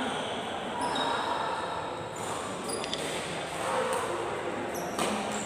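Echoing sports-hall background between badminton rallies: faint voices, a few brief high squeaks of shoes on the court floor, and one sharp racket-on-shuttlecock hit about five seconds in.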